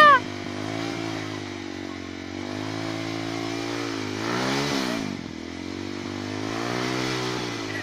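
Trail motorcycle engine revving up and down as the bike climbs a muddy trail, the revs rising to a peak about four and a half seconds in, then dropping sharply.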